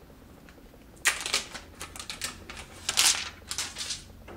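Clear plastic protective film crackling as it is peeled off the back of a smartphone, in a run of loud crinkly bursts starting about a second in and loudest near the end.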